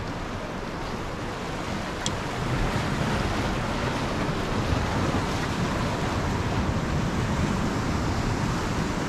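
Sea waves washing and splashing against large rock boulders in a strong current, a steady rush of surf that grows louder about two and a half seconds in.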